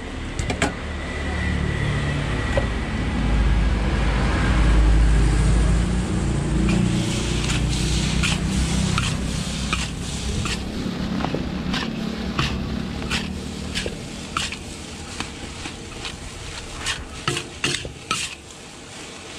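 Rice frying in a large steel wok for nasi goreng, a metal spatula stirring and tossing it: sizzling with repeated sharp clanks and scrapes of the spatula against the wok, coming faster in the second half. A low rumble swells under the first half.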